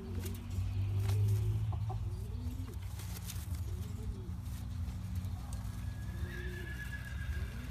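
Domestic pigeon cooing: low, arching coos repeated every second or so, over a steady low hum.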